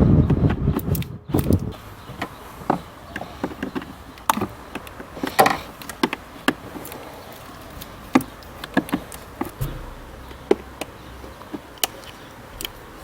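Screwdriver working Torx screws out of a car's plastic cowl cover: scattered, irregular sharp clicks and light taps of tool on screw and plastic, after a louder stretch of handling noise in the first second and a half.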